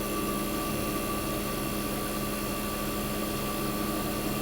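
1965 Fedders Weather Wheel 12,000 BTU window air conditioner running steadily, its Tecumseh AJ reciprocating compressor humming under the even rush of the fan. The unit is cooling normally, working perfectly.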